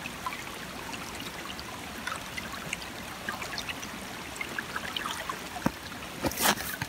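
Small snowmelt stream trickling, with water running into a plastic bottle held in the current. About six and a half seconds in, a brief louder scuff is heard.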